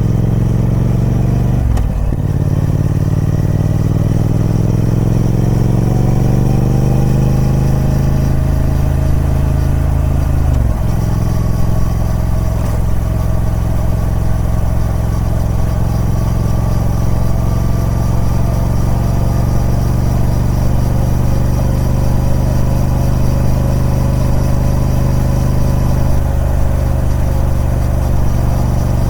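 Triumph Speed Twin 1200's parallel-twin engine through its stock exhaust, accelerating through the gears. Its pitch climbs, dips briefly at two upshifts about two and eleven seconds in, then holds nearly steady at a cruising speed.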